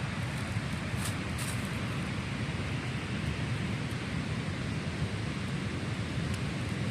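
Wind buffeting the microphone outdoors, a steady rumbling hiss, with a couple of faint clicks about a second in.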